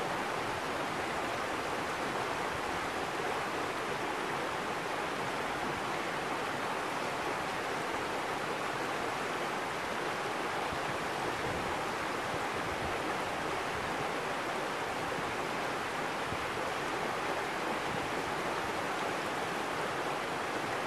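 Stream water running over rocks: a steady rush that holds the same level throughout.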